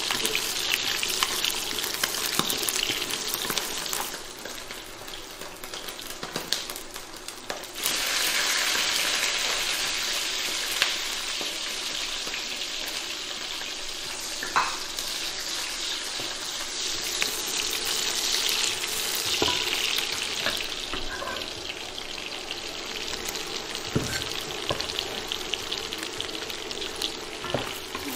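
Fatty pork and pig's ear slices sizzling in hot oil in a wok, with a wooden spatula scraping and knocking against the pan as they are stir-fried. The sizzle drops back for a few seconds about four seconds in, then returns louder.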